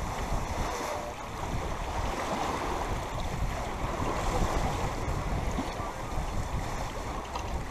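Wind buffeting the microphone over the steady rush of water along the hull of a sailboat under way, with a heavy low rumble.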